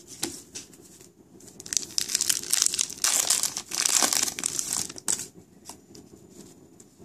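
Shiny wrapper of an Upper Deck MVP hockey card pack being torn open and crinkled, loudest in the middle, then a quieter rustle as the cards are handled near the end.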